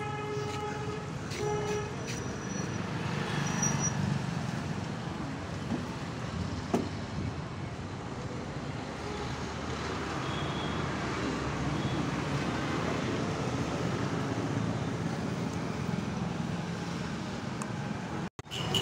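Steady street traffic noise, with a short horn-like tone about a second and a half in and a single sharp click near the middle.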